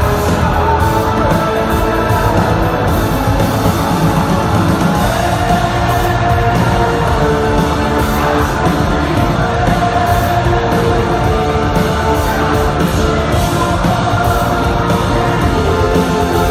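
Rock band playing live at a steady, loud level, with heavy distorted guitar over bass and drums.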